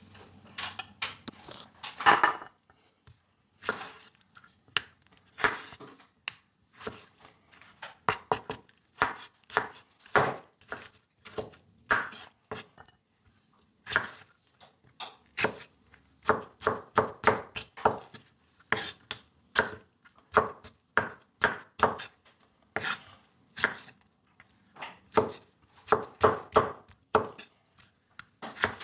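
Kitchen knife chopping tomatoes on a plastic cutting board: many sharp taps of the blade striking the board, in irregular runs with short pauses.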